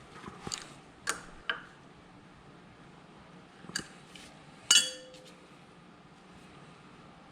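Metal clinks and clanks of tools and steel parts being handled, five or so separate strikes, the loudest about two-thirds of the way through with a short metallic ring.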